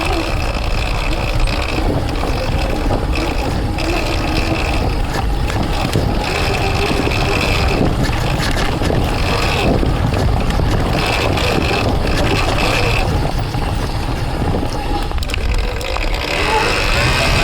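Electric dirt bike's motor (Surron Ultra Bee fitted with a TORP TM50 Pro motor) whining, its pitch rising and falling as the throttle is worked. A higher whine comes and goes in short stretches, over a constant low rumble from riding rough ground.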